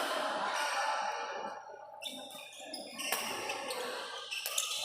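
Badminton play in a large hall: a few sharp racket strikes on the shuttlecock, clustered in the second half, over a steady hubbub of the hall.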